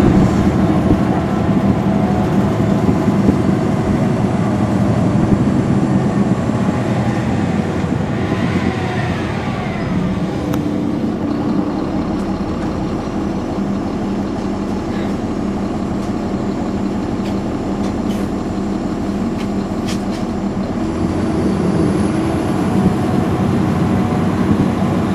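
Caterpillar C13 ACERT diesel engine of a 2009 NABI 416.15 transit bus under way. It runs strong early, eases off in the middle and builds again near the end.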